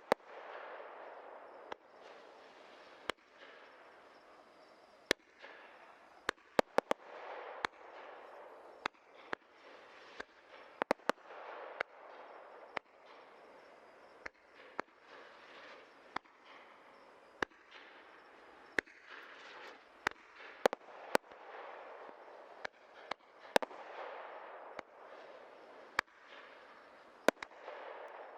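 Low-noise 37 mm multi-tube firework cake firing: repeated hissing rushes with sharp pops scattered irregularly among them, and no heavy bangs.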